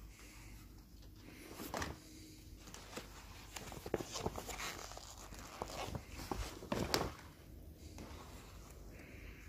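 Leather hides being lifted and turned over by hand, rustling and crackling, with a few louder flaps of a hide at about 2, 4 and 7 seconds in.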